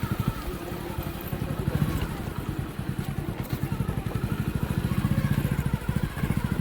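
Hero Passion Pro motorcycle's single-cylinder four-stroke engine running under way, its firing pulses steady and the sound swelling a couple of times with the throttle. The engine runs smoothly with new clutch plates fitted, without the clutch rattle it made before.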